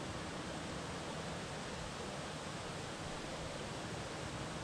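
Steady hiss of a shallow river running among rocks at the water's edge.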